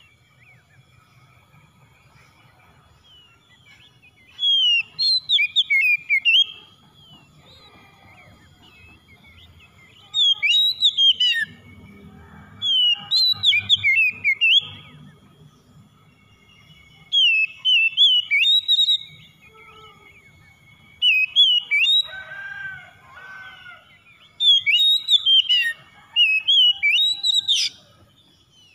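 Oriental magpie-robin singing: about six phrases of rapid, clear whistled notes that glide up and down, each one to three seconds long, with short pauses between them.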